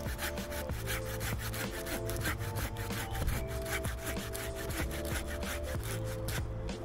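Hand saw cutting through the green trunk of a small sapling near its base, in quick, regular back-and-forth strokes.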